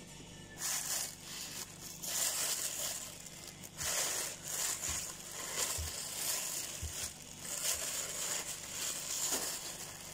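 Thin plastic carrier bag crinkling and rustling on and off as it is handled and gathered up by hand.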